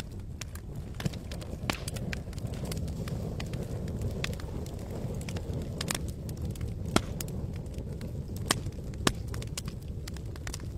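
Wood campfire crackling: irregular sharp pops and snaps, a few louder ones near the end, over a steady low rushing background.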